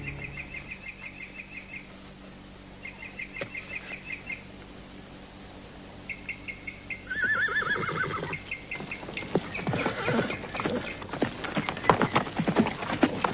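A horse whinnies once, about seven seconds in, then its hooves clop in a steady run that grows louder as it approaches. Before that, bursts of faint high chirping trills.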